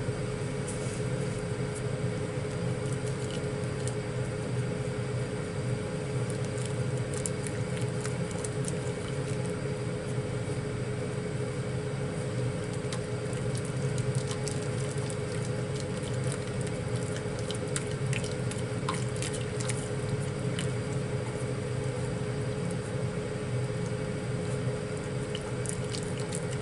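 Kitchen range hood fan running with a steady hum, under the soft squelch of curry roux being stirred into a saucepan of simmering potato water with chopsticks. Now and then the chopsticks click lightly against the pan.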